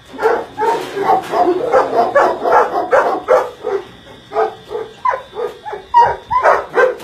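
Many caged dogs barking over one another in rapid, overlapping barks.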